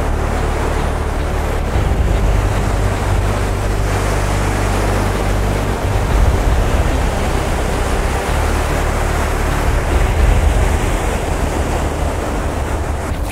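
Surf breaking on the shore, a steady rush of waves, with wind rumbling on the microphone.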